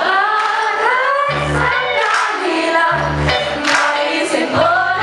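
Live band performance: a woman singing long, sliding held notes into a microphone over electric bass notes, keyboard and drums, heard through the room.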